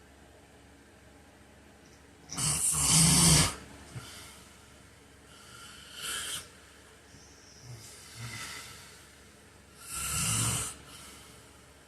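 A man snoring in his sleep: after a couple of seconds of quiet, a loud snore of about a second, then softer breaths and snores, and another loud snore near the end.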